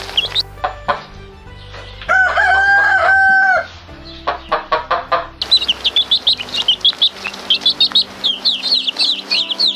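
A rooster crows once, about two seconds in, one long call lasting a second and a half, with clucking before and after it. From about halfway on, a flock of chicks peeps rapidly and continuously.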